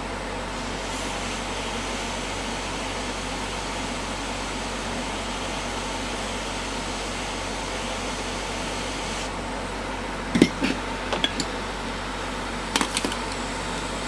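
Steady fan-like whir of bench equipment running during SMD soldering, with a few sharp clicks about ten seconds in and again near the end as tools are handled.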